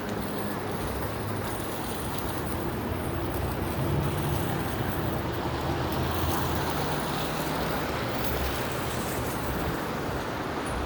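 City street traffic: cars passing with steady engine hum and tyre noise on wet pavement, swelling slightly about four and six seconds in.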